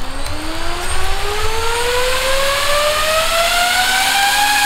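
DJI FPV drone's motors and propellers whining, the pitch climbing steadily throughout, as turtle mode spins them up to flip the upside-down drone back onto its feet.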